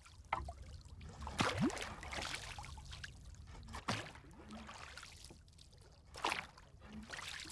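Oars of a small rowboat dipping and splashing in calm shallow water, a few irregular strokes over a faint trickle of water.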